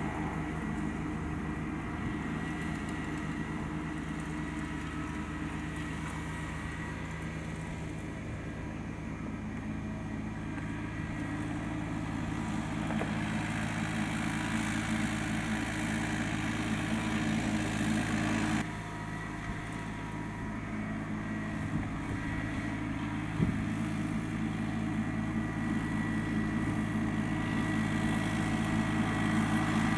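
Four-wheel-drive New Holland compact tractor's diesel engine running steadily under load while it pulls a chain harrow. The sound drops abruptly a little past halfway, then grows louder toward the end as the tractor comes closer.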